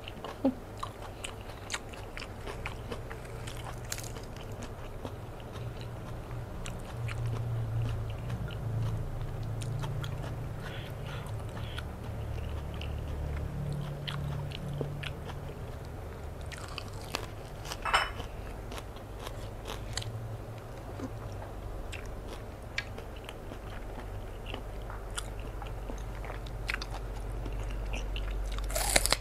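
Close-miked eating sounds: a person chewing and biting raw salmon dipped in a spicy seafood sauce, with many small sharp mouth clicks and a louder one about two-thirds of the way in, over a low steady hum.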